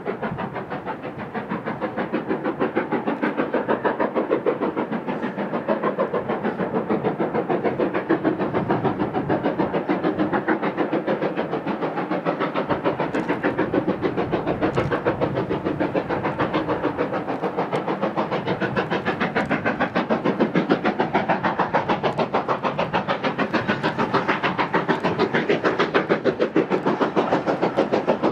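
LNER B1 class two-cylinder 4-6-0 steam locomotive working hard under load, hauling a five-coach train, its chimney exhaust beating in a steady, rapid, even rhythm.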